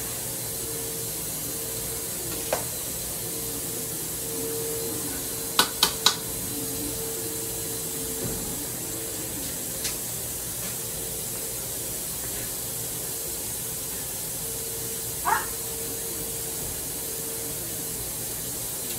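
Steady kitchen hiss with a faint steady hum, broken by a few sharp clicks: one about two and a half seconds in, three in quick succession about six seconds in, and a short higher sound about fifteen seconds in.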